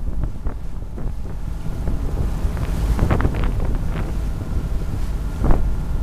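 Water splashing and slapping against the hull of a small boat under way, with bursts of spray about halfway through and again near the end, over a steady low rumble of wind buffeting the microphone.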